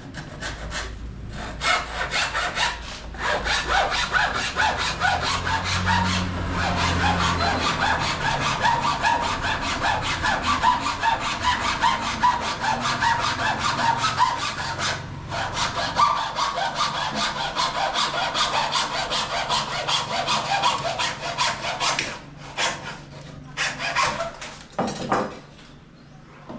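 Hand saw cutting a 45-degree mitre in cornice moulding with fast, steady back-and-forth strokes. It pauses briefly twice, then finishes with a few short strokes near the end.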